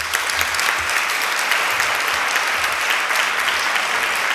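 A large audience applauding: many people clapping at once in a dense, steady patter.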